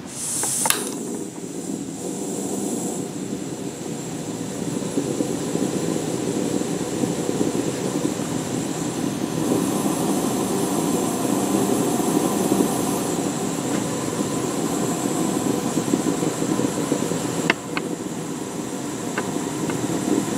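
Small laboratory gas burner being lit: gas hissing as the valve opens, with a click about a second in, then the flame burning with a steady rushing noise. A couple of sharp ticks come near the end.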